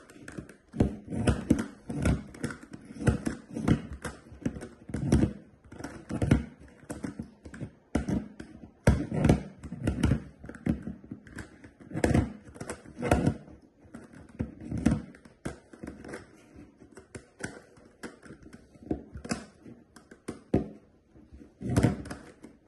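Plastic clicking and clacking of a GAN Megaminx puzzle being turned quickly with one hand. The turns come in uneven runs of rapid taps, with short pauses between them.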